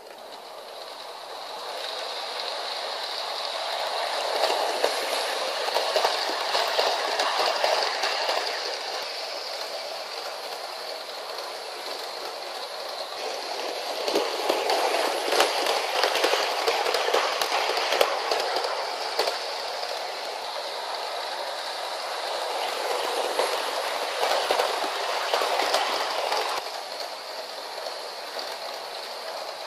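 Model electric train, the 060-EA locomotive model hauling CFR passenger coaches, running round a loop of sectional track on a wooden floor: a continuous rolling rattle of wheels and motor that swells and fades about three times as the train comes close and moves away, with scattered clicks over the rail joints.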